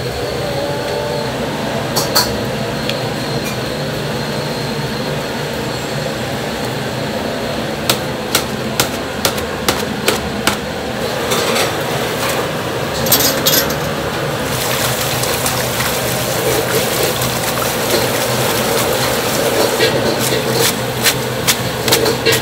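Noodles stirred with a wooden stick in a large pot of boiling water over a steady kitchen roar, with a run of sharp knocks about eight seconds in. From about eleven seconds, a sink sprayer runs water over the noodles in a plastic strainer, with a few more knocks near the end.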